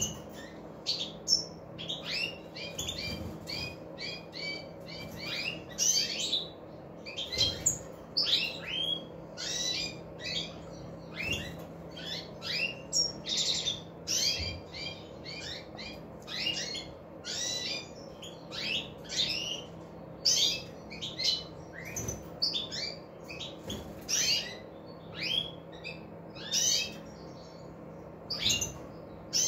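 European goldfinches twittering: a continuous run of short, quick chirping notes, coming in little clusters every second or so.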